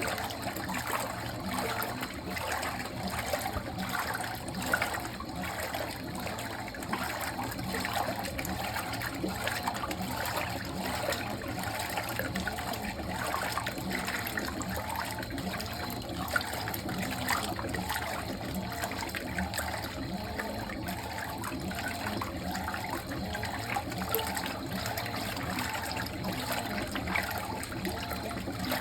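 Water splashing steadily into the tub of a Fisher & Paykel MW059NZ top-loading washing machine as it fills for a towels wash.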